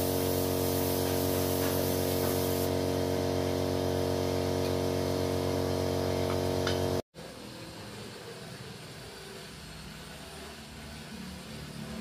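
Small electric air compressor running with a steady hum under the hiss of a paint spray gun. Both cut off abruptly about seven seconds in, leaving a quieter steady hiss and low rumble.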